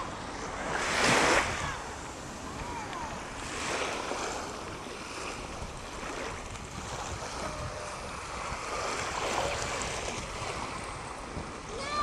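Surf washing onto a sandy beach, with wind buffeting the microphone; the loudest surge of noise comes about a second in.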